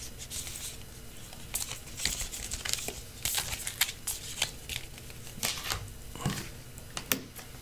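Paper and card packaging inserts rustling and sliding as they are handled and lifted out of a cardboard box, with scattered light taps and clicks.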